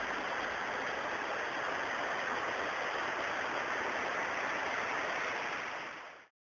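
Steady rush of a fast mountain stream tumbling over rocks, a constant hiss that fades out about six seconds in.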